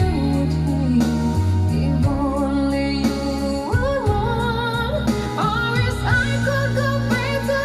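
A song playing, with a sung vocal line held and wavering with vibrato over sustained bass notes and a steady drum beat.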